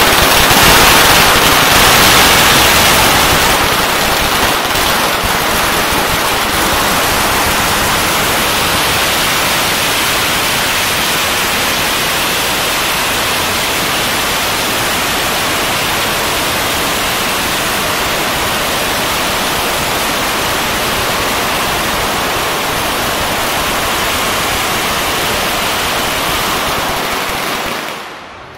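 A long string of firecrackers going off without a break, the bangs so rapid that they merge into a dense, steady crackle; it is loudest in the first few seconds and stops suddenly near the end.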